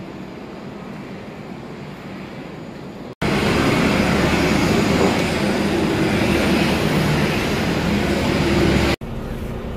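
Steady running noise of a vehicle, cut abruptly twice: a moderate stretch with a low steady hum, then a much louder stretch from about three seconds in, dropping back to a quieter one near the end.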